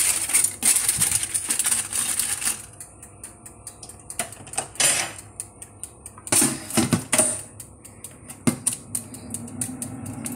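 Rapid clicking and clatter of a wire rack and foil being handled in a countertop halogen convection oven. Near the end the lid closes and the oven's fan starts with a steady hum.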